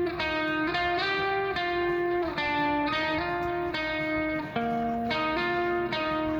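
Background music: a plucked guitar tune with notes changing about every half second.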